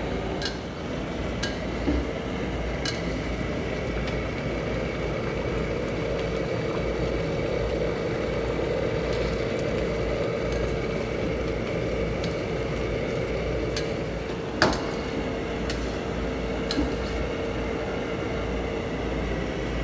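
Metal spatula stirring chicken curry in a steel wok, scraping and clinking against the pan with scattered sharp taps; the loudest comes about two-thirds of the way through. Under it runs a steady kitchen hum with a low rumble.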